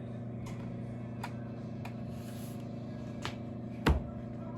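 A steady low electrical hum, with a few light clicks and one heavy knock about four seconds in, as of something hard being handled or set down.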